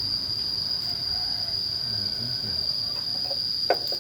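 Insects, crickets or similar, trilling as one steady high-pitched drone, with a couple of short sharp sounds near the end.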